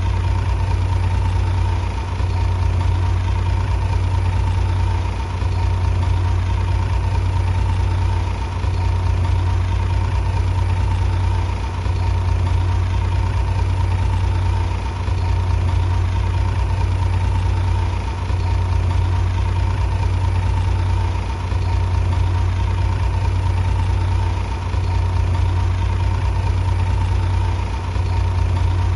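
Heavy diesel engine running steadily in a deep, even drone with a faint steady whine above it, the level dipping briefly about every three seconds.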